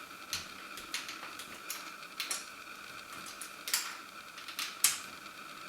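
Light plastic clicks and taps from handling and adjusting the parts of a Cyborg R.A.T. 7 gaming mouse, about eight at irregular intervals, the sharpest near the end.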